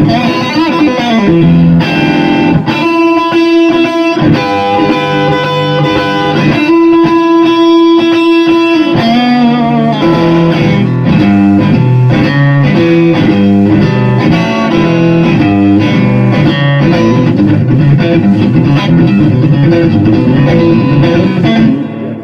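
Electric guitar, a Stratocaster fitted with Fishman Fluence single-width pickups, played loud through an amp. Two long held notes come early, then quick runs of notes until the playing stops near the end.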